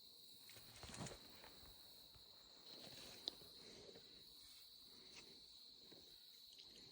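Faint, steady, high-pitched insect chorus, with a few soft rustles about a second in and a small sharp click a little past three seconds.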